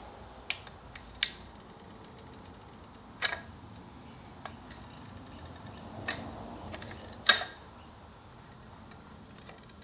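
Manual caulk gun clicking as its trigger is squeezed and the plunger rod ratchets forward, pushing caulk into the hole around a hose bib: about five sharp clicks, irregularly spaced, the loudest near the end.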